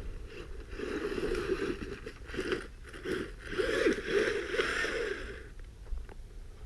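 Redcat Volcano EPX Pro RC truck driving over soft dirt: its brushless motor whines, rising and falling with the throttle, while the spiked tires crunch and scrape through the soil.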